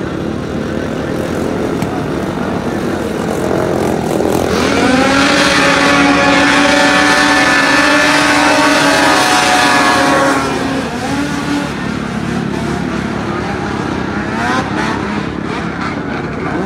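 Racing snowmobiles skimming across open water, their engines held at high revs in a steady, slightly wavering whine. It grows loud about four seconds in as the sleds pass close and falls back after about ten seconds, with more engines revving up near the end.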